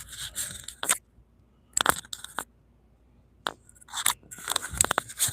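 Close handling noise: scrapes, rustles and several sharp clicks in irregular bursts with short quiet gaps, with a quick cluster of clicks near the end.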